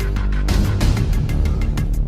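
Background music with a fast, steady drum beat over sustained low notes, with a cymbal crash about a quarter of the way in.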